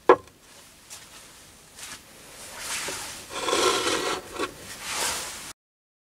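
A brass oil lamp is set down on a metal workbench top with a single sharp knock, followed by a couple of light clicks. Then come about three seconds of scraping and rubbing in uneven surges, which stop abruptly near the end.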